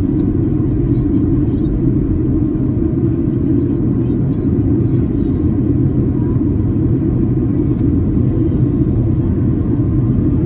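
Steady cabin noise inside a Boeing 737-800 on descent: a constant low rumble of airflow and its CFM56-7B engines, with no distinct events.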